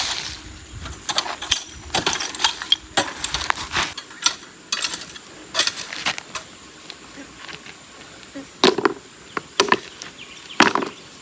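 Small stones being picked off the flower-bed soil and tossed aside, each landing with a sharp clink or knock against other stones. The clinks come irregularly, more than a dozen in all, with two louder ones near the end.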